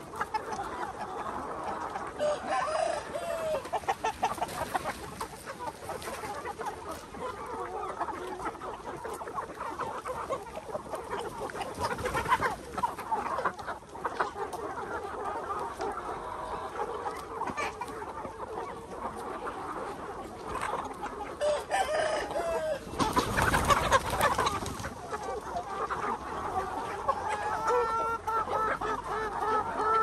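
A large flock of chickens clucking continuously, with roosters crowing now and then. A loud burst of noise stands out about three-quarters of the way through.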